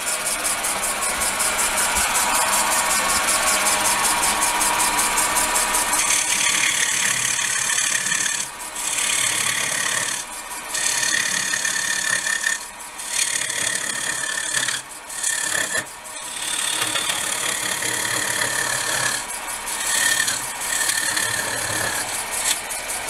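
Lathe-turning cut into a spinning blank of hard, still-wet ash with a cutter made from a drill bit: a continuous rough scraping cut for about six seconds, then shorter cuts broken by brief pauses. The hard wood cuts with difficulty.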